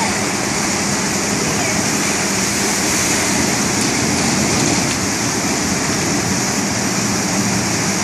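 Log flume water rushing steadily down the chutes and through the channel, a constant splashing noise.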